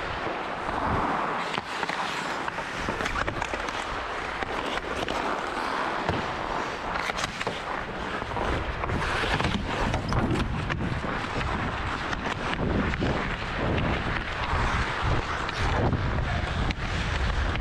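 Ice hockey skates scraping and carving on rink ice as a player skates, with many short sharp clicks of the stick blade on the puck.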